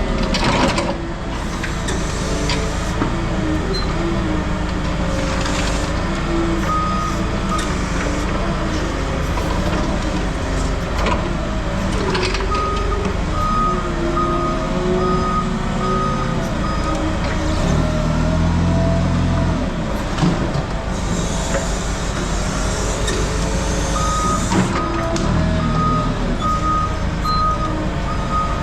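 A heavy work vehicle's engine running, its pitch rising and falling with the throttle, while its reversing alarm beeps about once a second in two spells, midway and near the end. A hiss of air or hydraulics comes about two-thirds of the way in.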